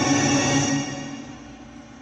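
Background music with sustained, layered tones that fades out over about a second, starting just under a second in.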